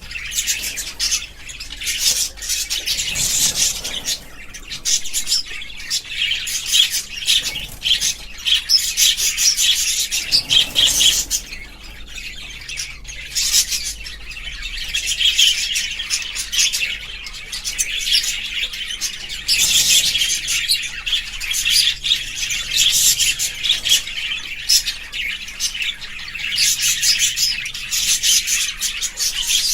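Budgerigars chattering and chirping continuously, a dense run of quick high chirps and squawks from several birds.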